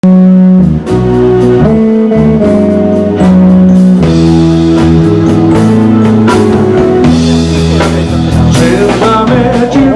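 Rock music with guitar and drum kit, a low line of held notes moving under it and regular drum hits throughout.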